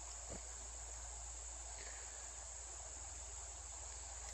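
Crickets trilling in a steady, unbroken, high-pitched chorus.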